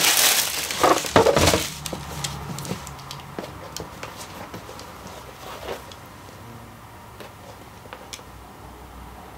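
Tissue paper rustling and crinkling as a pair of sneakers is pulled out of their shoebox, loudest in the first two seconds, then faint handling clicks and taps.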